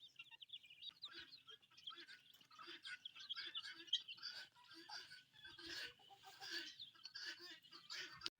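A flock of domestic chickens calling faintly as they feed on scattered grain: many short, high chirps overlapping with low clucks.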